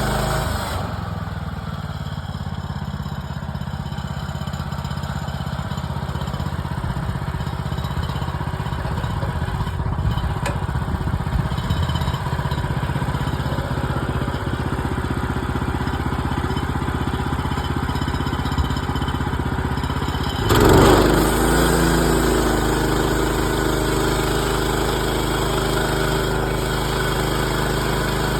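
The gas engine of a portable bandsaw sawmill runs steadily while the mill works through pine boards. About two-thirds of the way through there is a brief loud surge, and after it the engine's tone changes.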